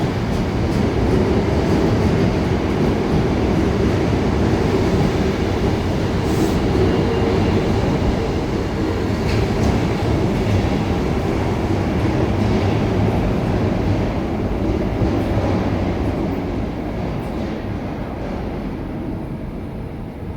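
Osaka Metro Tanimachi Line subway train running alongside the platform, a steady rumble of wheels and motors that fades gradually over the last few seconds as the train moves away.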